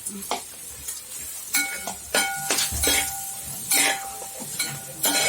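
A metal spoon clinking and scraping in a steel cooking vessel as spices are stirred in, with half a dozen ringing strikes spread through the stretch.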